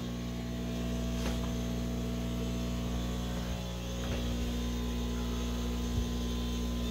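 Backup aquarium air pump running with a steady electric hum, driving the tank bubblers.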